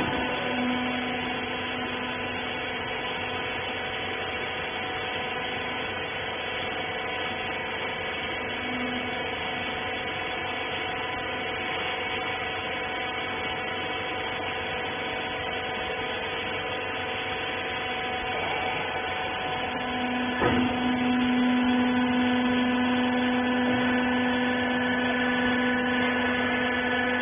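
Wiper baler machine's motor running with a steady electric hum; a click about 20 seconds in, after which the hum grows a little louder.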